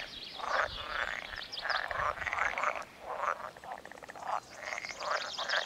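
A breeding chorus of many frogs calling at once, overlapping pulsed croaks, each frog with a different voice. The callers are taken by the observers for common frogs.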